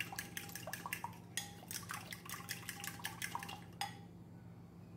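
A small whisk beating a thin egg-and-milk batter in a glass bowl, making rapid, even clicking and tapping against the glass. The whisking stops about four seconds in.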